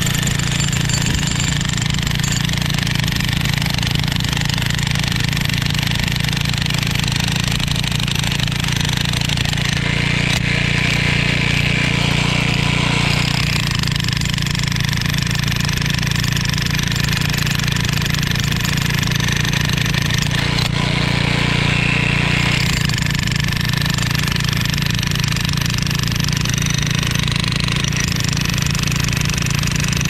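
Toolman LT5105 14-amp electric jackhammer hammering steadily without pause, its chisel bit breaking into an old concrete foundation.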